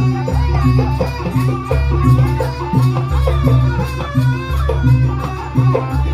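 Traditional Javanese jaranan music played loud, with percussion and a deep bass note that changes about every one and a half seconds under a wavering melody.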